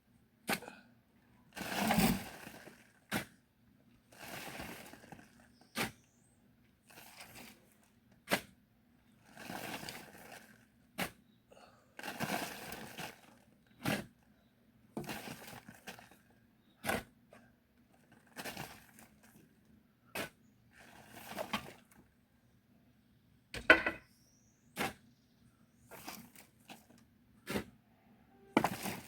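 A digging tool scraping into loose murram soil in a steady working rhythm: a gritty scrape followed by a sharp click about every two and a half seconds, the loudest click near the end.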